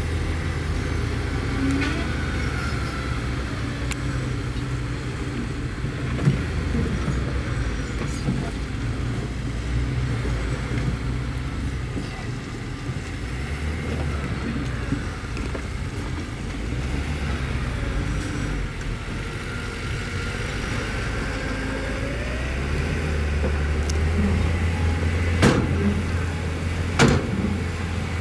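Bulldozer's diesel engine running steadily at working revs, its low drone swelling near the end, with two sharp knocks a second and a half apart near the end.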